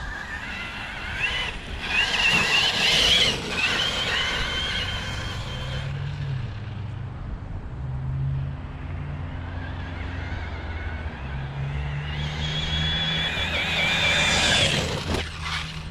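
Brushless electric motor and drivetrain of a Traxxas T-Maxx RC truck running on 6S, whining high as it accelerates in two runs: one a second or so in, the other from about twelve seconds. A sharp knock comes near the end. A steady low hum runs underneath.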